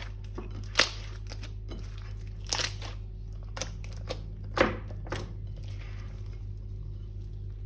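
Sharp crinkling and crackling of plastic and slime being handled, in a few loud snaps at uneven intervals with fainter crackles between, over a steady low electrical hum.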